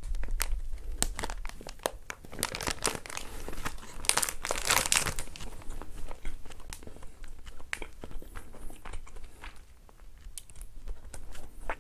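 Clear plastic bread wrapper crinkling and tearing as it is opened, loudest about four to five seconds in. After that come quieter, scattered sounds of biting and chewing soft corn bread.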